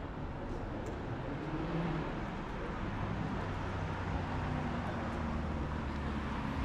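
City street traffic: car engines running past in a steady din.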